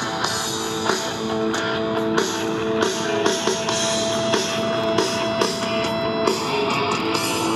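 Background music with guitar and drums.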